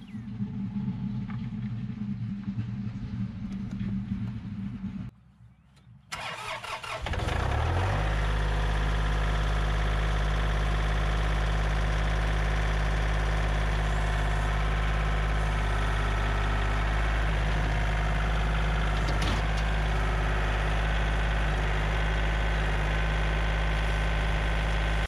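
An engine starts about seven seconds in and settles into a steady idle. Before it, a quieter, rougher running sound cuts out about five seconds in.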